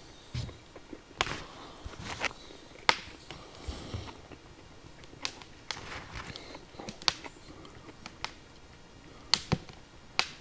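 Wood fire crackling in a fire pit: sharp, irregular pops and snaps, a dozen or so spread unevenly over a quiet background.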